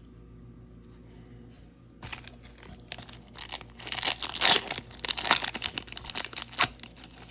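A foil trading-card pack wrapper being torn open and crinkled. About two seconds in, a quick, irregular run of tearing and crackling starts and carries on.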